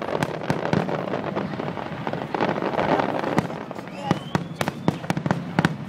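Aerial fireworks shells bursting in quick succession: many sharp bangs at irregular intervals over a dense crackle that is thickest in the first three seconds. A short rising whistle comes about four seconds in.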